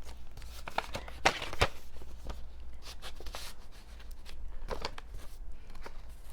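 Packaging being handled, rustling and crinkling in irregular bursts, with the sharpest crackles about a second and a half in.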